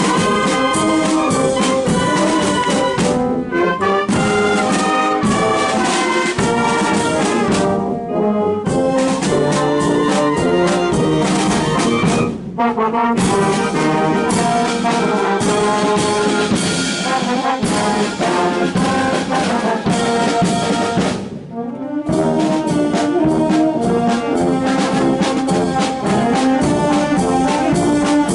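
A Portuguese filarmónica (brass and wind band) playing, with brass and percussion. It breaks off for short pauses between phrases about 3, 8, 12 and 21 seconds in.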